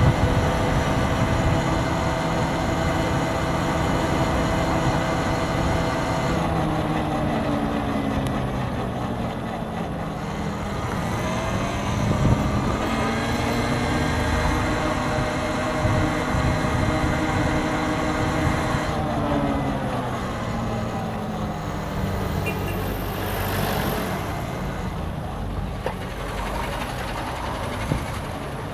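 Tesla Cybertruck driving, with a steady hum of electric drive and tyres. Its pitched tones slide down about seven seconds in and climb back up over the next ten seconds.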